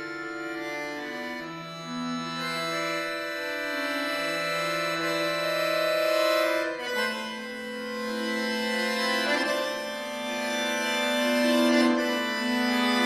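Solo chromatic button accordion playing contemporary classical music: long sustained chords over a slowly moving bass line. The harmony changes about seven seconds in, and the sound swells louder toward the end.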